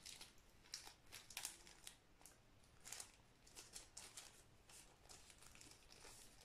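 Faint, scattered crinkling of a small plastic bag being handled and opened by hand.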